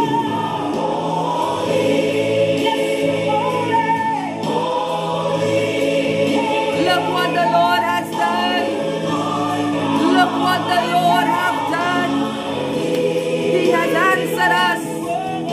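Gospel praise music with a choir singing over sustained chords.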